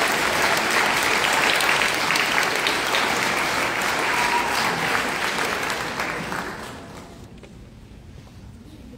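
Audience applauding, dying away about six to seven seconds in.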